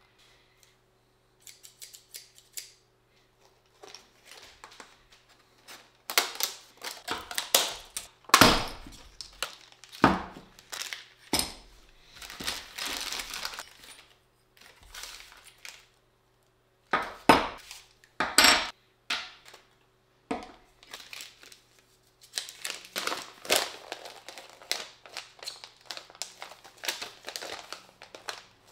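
Clear plastic packaging and small plastic parts bags crinkling, tearing and rustling as they are opened by hand, in irregular spells with quiet gaps. Several sharp knocks of parts being set down on a wooden table, with a paper instruction sheet handled near the end. A faint steady hum underneath.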